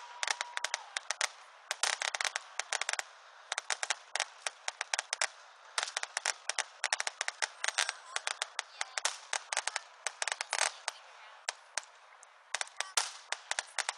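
Fireworks crackling: rapid clusters of sharp pops from bursting shells, coming in runs of a second or two with short gaps between.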